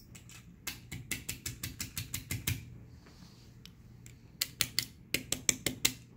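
Two runs of rapid, sharp clicks, about six a second: one starts under a second in, and a shorter run follows near the end.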